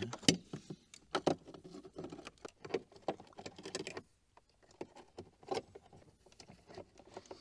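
Irregular small clicks, taps and rustles of hands working a speaker and its wiring connector down inside a car's dashboard speaker opening, with a short lull about halfway through.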